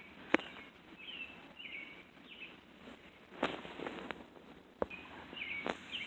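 Small birds chirping: short repeated chirps, about two a second, over faint background noise, with a few sharp clicks, the loudest early on and another near the middle.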